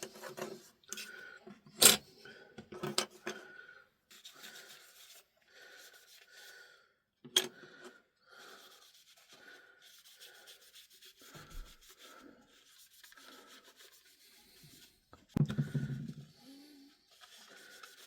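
A small tool scraping old foam and adhesive residue off a plastic radio battery cover: a run of short scraping strokes, about one a second, with a couple of sharp clicks and a louder knock near the end.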